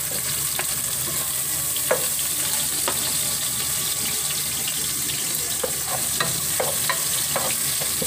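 Chopped onion and garlic sizzling in hot oil in a pot, the start of a sauté: a steady frying hiss with scattered sharp crackles.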